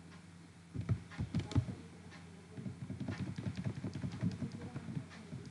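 Computer keyboard keys clicking: a few separate presses about a second in, then a quicker run of lighter key presses.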